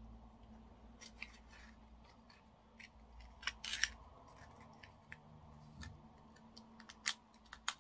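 A blade prying and scraping at the shell of a freshwater pearl mussel, heard as faint scattered clicks and scratches. There is a short run of scraping about three and a half seconds in, and two sharp clicks near the end.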